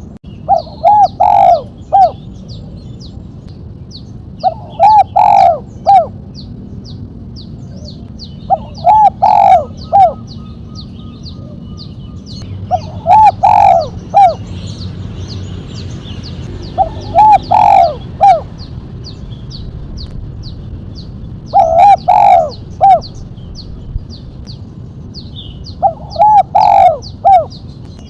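Spotted dove (tekukur) cooing: a short phrase of three or four sharp notes, repeated about every four seconds, seven times. This is the song style keepers call 'mercik kuk 1'. Faint, rapid high chirping of small birds and a low steady hum run underneath.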